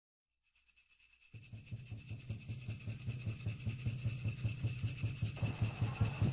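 A rhythmic rasping sound, about five strokes a second, fading in over a low pulsing hum at the same beat, with a faint steady high tone underneath.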